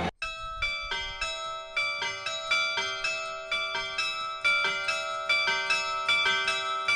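Carillon bells in a church tower play a melody of struck notes, about three a second, each note ringing on under the next.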